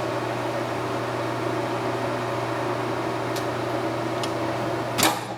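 Nardini Mascote 14x40 geared-head lathe running steadily at about 313 RPM in low range, a steady hum of motor and headstock gearing with several steady tones. Near the end there is a sharp clack.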